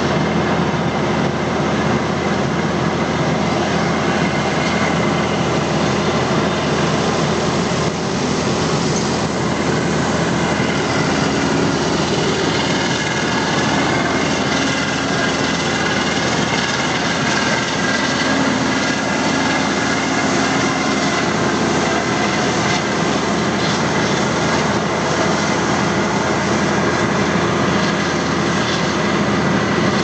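John Deere 9750 STS combine harvester and a tractor towing a chaser bin running side by side while harvesting and unloading on the move: a loud, steady engine and machinery drone.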